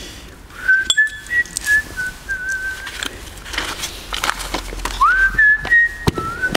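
A person whistling a short tune in two phrases, the second opening with a rising slide, with a few light clicks and knocks of handled tools in between.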